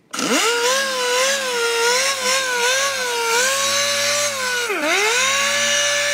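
Pneumatic random orbital sander spinning up and running with a steady whine as it sands the bare metal seat pan. Its pitch wavers under hand pressure and dips sharply about five seconds in before recovering.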